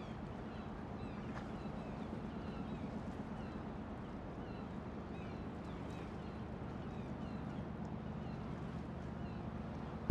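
Outdoor ambience: a steady hiss and low hum, with faint short high chirps repeating every half second or so.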